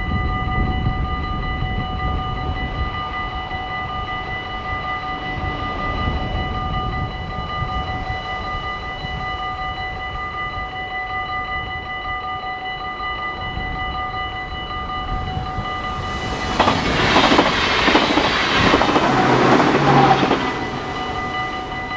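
Dutch level-crossing warning bells ringing continuously in a steady, high ringing tone. About sixteen seconds in, a yellow NS passenger train passes through the crossing at speed for about four seconds, the loudest sound here, with a rush of wheel and air noise, while the bells keep ringing.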